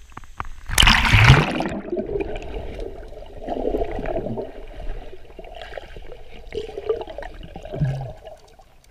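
A loud splash into river water about a second in, followed by several seconds of gurgling, sloshing water.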